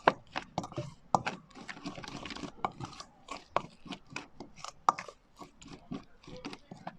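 A thick spice-and-yogurt marinade being stirred in a bowl: irregular clicks and knocks of the utensil against the bowl, several a second, with soft squelching between them.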